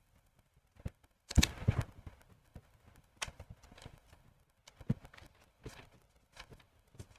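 Scattered short clicks and knocks, irregularly spaced about a second apart, with a louder cluster of knocks about a second and a half in.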